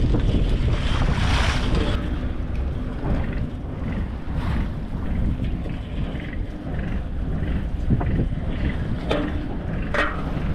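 Fishing boat running steadily with a low rumble, wind buffeting the microphone, while the net is hauled in by the boom. A few short knocks come in the last couple of seconds.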